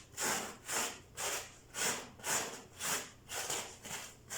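A brush scrubbing dust off a barrel vacuum cleaner's filter bag, in repeated scratchy strokes about two a second.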